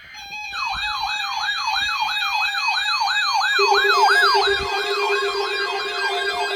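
Electronic siren on a fast yelp, its pitch sweeping up and down about three times a second. About three and a half seconds in, a steady lower tone joins it.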